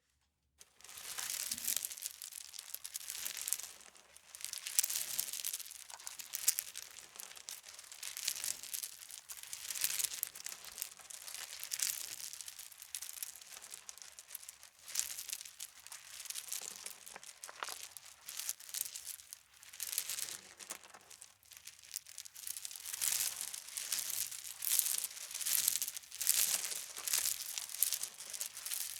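A broom dragged across stones, its bristles scraping in repeated uneven strokes that start about half a second in.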